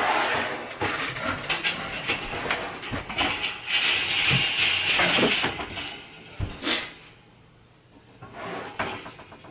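Handling noise: rustling with scattered light knocks and clicks, a louder stretch of rustling about four to five seconds in, then it settles down near the end.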